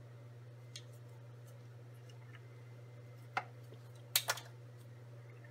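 Small plastic clicks from handling a micropipette and microcentrifuge tubes in a plastic rack: a faint one near the start, a sharper one past the middle and a louder quick pair soon after, over a steady low hum.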